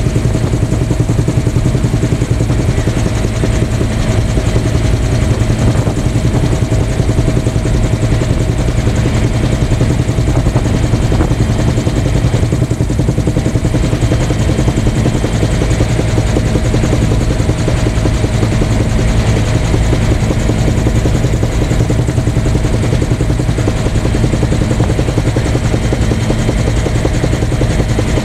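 Steady, loud engine and rotor drone of a light aircraft in cruise flight, heard from inside the cabin, with no change in pitch or power.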